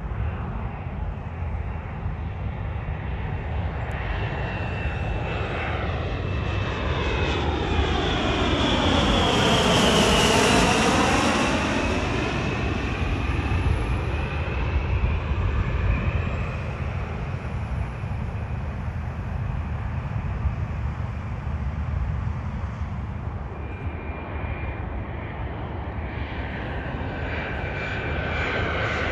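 Business jet on final approach passing low overhead: its engine rush swells to a peak about a third of the way in, with a sweeping, flanging change in tone as it passes, then fades to a steady rumble. Near the end the next landing jet approaches with a rising high-pitched engine whine.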